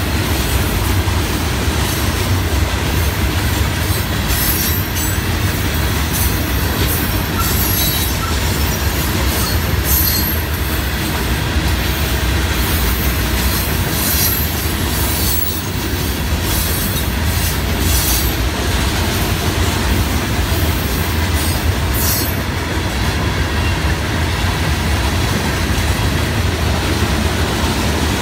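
Loaded open hopper cars of a freight train rolling past: a steady low rumble of steel wheels on rail, broken by brief high wheel squeals now and then, which die out after about 22 seconds.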